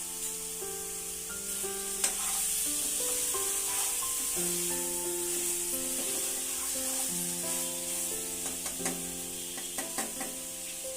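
Mutton frying in oil and masala in a pan: a steady sizzle, with a spoon stirring and scraping in the pan and a few sharp clinks, the loudest about two seconds in and several more near the end. Soft background music with held notes plays underneath.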